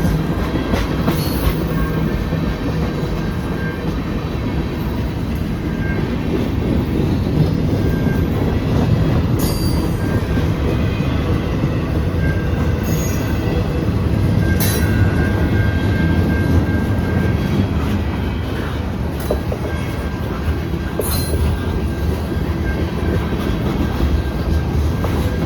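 CN freight train rolling past: a steady loud rumble of wheels on the rails, with short high-pitched wheel squeals several times.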